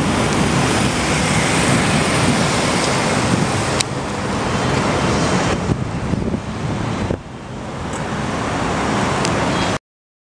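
Steady road and traffic noise heard from a car in city traffic. It shifts abruptly twice and cuts off to silence near the end.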